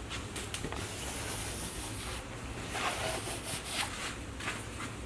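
Hand rubbing strokes of a file and fine emery paper on the engine's metal gasket surface, cleaning off head-gasket remnants. The strokes come as a high hiss, in two longer passes about a second in and about three seconds in.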